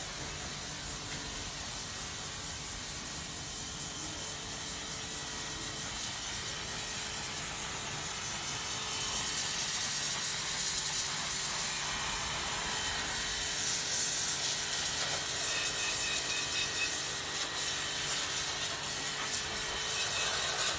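Pressure washer spraying a masonry wall: a steady hiss of the water jet on the stone, growing louder about eight to ten seconds in.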